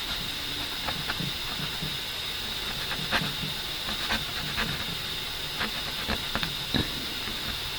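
Steady hiss with faint, irregular taps and light scrapes, from dabbing and rubbing alcohol and water onto a painted canvas to lift 3D outliner paint.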